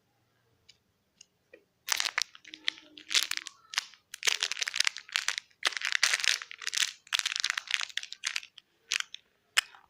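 Plastic packaging around a squishy toy crinkling and crunching in repeated bursts as it is handled, after a few faint clicks.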